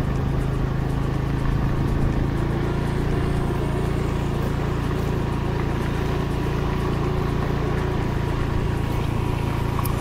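Motorcycle engine running at a steady speed while riding, a constant even hum.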